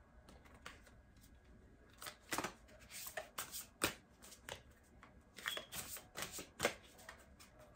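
A deck of oracle cards shuffled by hand: bursts of quick card clicks and slaps, starting about two seconds in, pausing briefly around the middle, then picking up again.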